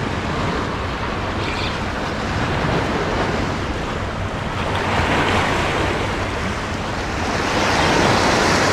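Small sea waves washing and breaking against a rocky shoreline, with wind buffeting the microphone; the wash swells about five seconds in and again near the end.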